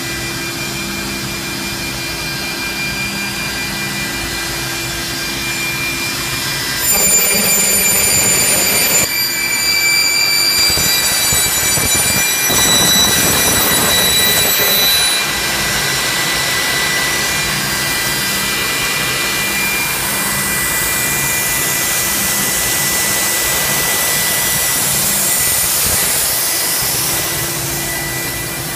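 Casadei Alu Bender Photo edge-bending machine running: a steady mechanical hum and airy blowing noise with several high, steady whining tones. It grows louder, with extra high whines, from about 7 to 15 seconds in.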